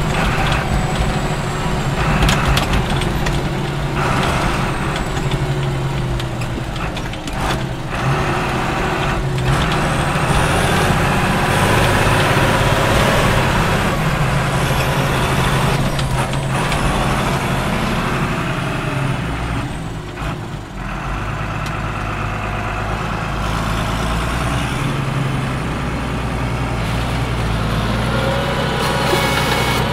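Case CS 150 tractor engine running steadily under load while pulling a loaded slurry tanker, heard from inside the cab. Scattered knocks and rattles come through, a high whistle rises and falls in the middle, and the engine note drops briefly about two-thirds of the way in.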